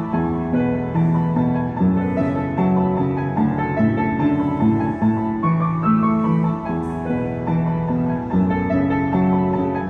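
Yamaha W106B upright piano played with both hands: held bass notes and chords under a moving melody line.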